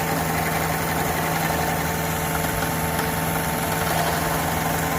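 A steady engine hum at idle: a constant drone with a few held tones over even background noise, unchanging throughout.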